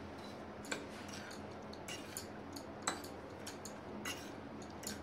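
Metal fork stirring fried sweet corn kernels on a ceramic plate: irregular light clicks and scrapes of the fork on the plate, with sharper clinks under a second in and about three seconds in.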